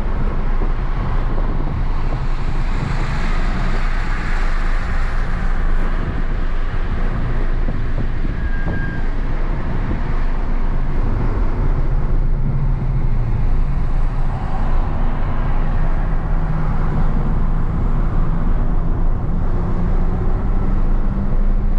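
BMW's engine and tyre and wind noise at track speed, heard from inside the cabin. The engine note shifts up and down as the car accelerates and slows for corners.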